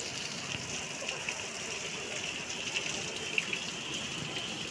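Rain falling on a wet street and pavement: a steady hiss of water with scattered small splashes.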